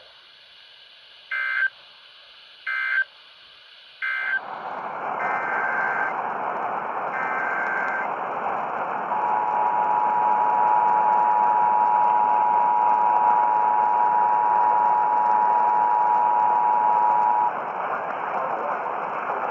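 Emergency Alert System tones received over the radio: three short warbling digital data bursts, then steady static hiss, two more data bursts, and then the two-tone EAS attention signal. The attention signal is two steady pitches sounded together for about eight seconds, and the hiss carries on after it stops.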